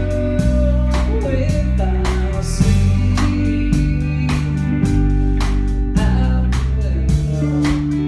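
Live band music: a man singing over an electric guitar and bass, with a steady drum beat at about two strokes a second.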